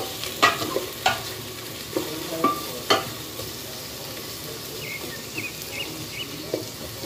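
Sliced onions and garlic sizzling in hot oil in an aluminium pot, sautéing until the onions turn translucent. A wooden spatula stirs them, scraping and knocking against the pot a few times in the first three seconds.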